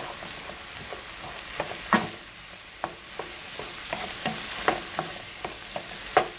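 Ground beef with diced peppers and onion sizzling in a skillet while a wooden spoon stirs through it, with irregular soft knocks and scrapes of the spoon against the pan over a steady frying hiss.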